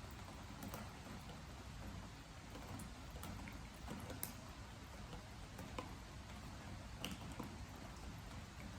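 Rain with drops falling onto a wooden deck: a faint, steady rain hiss with single drips ticking irregularly on the boards.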